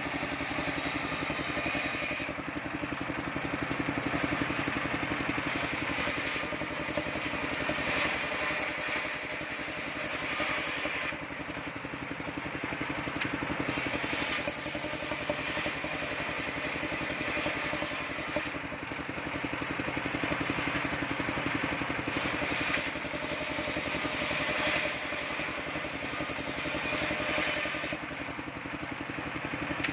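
Engine-driven mobile circular sawmill ripping waru wood planks. The engine drones steadily throughout, and a harsher high-pitched cutting sound of the blade in the wood comes in stretches of several seconds, dropping back to the free-running engine and blade in short gaps between passes.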